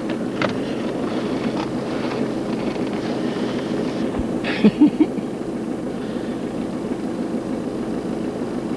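Steady low drone of a vehicle engine idling, with three short, sharp sounds a little under five seconds in.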